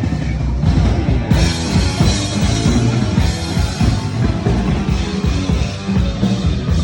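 Rock drum kit in a drum solo, played fast with dense bass drum, tom and snare strokes. Cymbals crash in about a second in and keep ringing over the drumming.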